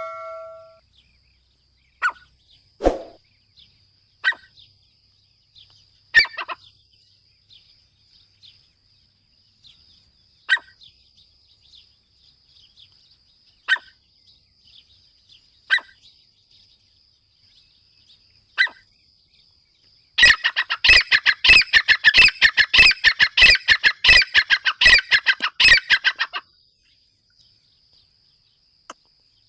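Grey francolin calling: sharp single call notes every couple of seconds, then about twenty seconds in a loud, rapid run of repeated calls that lasts some six seconds and stops abruptly.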